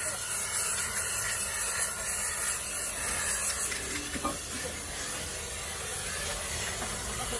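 Gas torch flame hissing steadily as it heats the inner race of a large spherical roller bearing on a jaw crusher's eccentric shaft, to expand the race and loosen it on the shaft.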